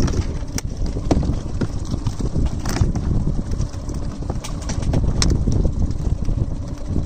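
Wind rumbling on the microphone aboard a small boat, with irregular sharp knocks and taps on the boat's hull and deck.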